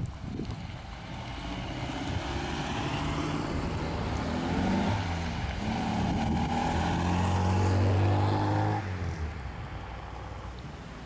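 Classic cars driving past one after another, the loudest an MGB roadster's four-cylinder engine pulling past close by, its note rising as it accelerates. It falls away abruptly about three-quarters of the way through, leaving a quieter engine running.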